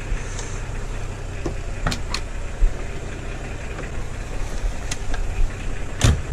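Nissan Patrol idling with a steady low rumble, with a few sharp clicks and knocks from hands on the door trim and the rear door, the loudest near the end.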